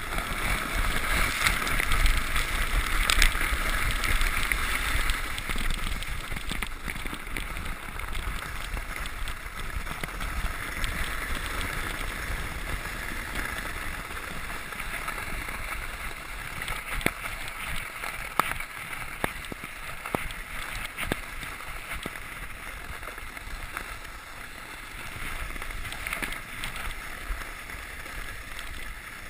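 Sled sliding fast down a packed-snow trail: a steady hiss and scrape of the sled over the snow, loudest in the first few seconds, with sharp knocks from bumps later on.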